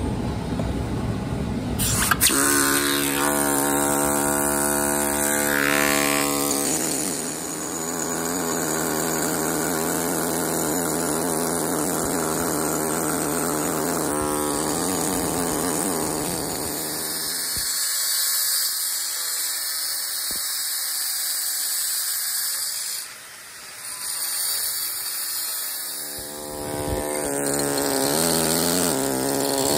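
Pneumatic hand machine (air hammer) with a carbide chisel cutting granite: a steady buzz with air hiss that changes in tone as it works. It briefly drops away about three-quarters of the way through.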